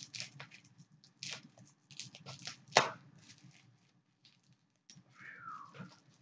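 Plastic packaging being handled and torn open: a run of irregular sharp crackles and rustles, the loudest snap about three seconds in.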